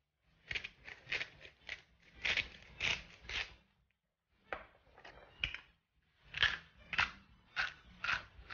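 Hand-turned spice mill grinding salt and pepper onto a tart: short grinding twists, several a second, in three runs with brief pauses between.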